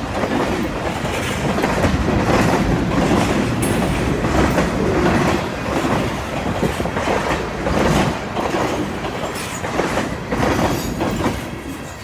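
CN freight train cars rolling past, with wheels clacking over the rail joints over a steady rumble, easing off slightly near the end.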